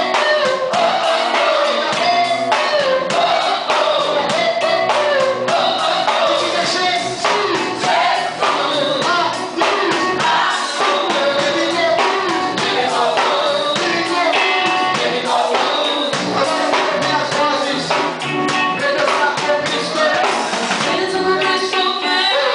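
Music with a group of voices singing together over a steady beat.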